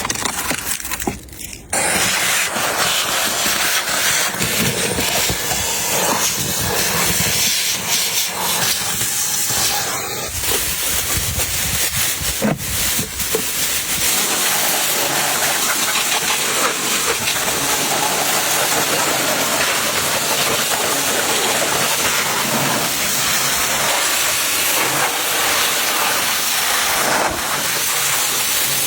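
High-pressure cleaning spray hissing steadily, starting about two seconds in.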